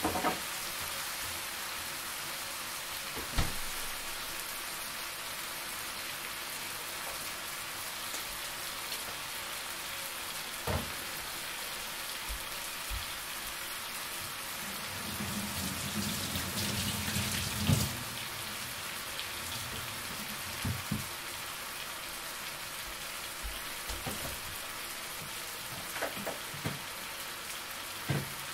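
Sauce of mushrooms and sun-dried tomatoes sizzling in a frying pan: a steady, fine hiss, broken by scattered short knocks. About halfway through comes a few seconds of low rumbling, which ends in a louder knock.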